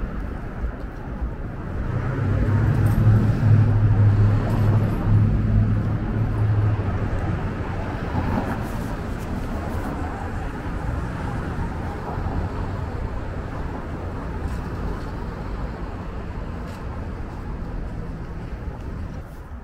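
Downtown street traffic: a vehicle's low engine hum grows loud about two seconds in and fades after about seven seconds, over a steady wash of road noise.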